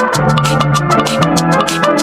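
Background music with a steady, fast drum beat over a bass line and sustained chords.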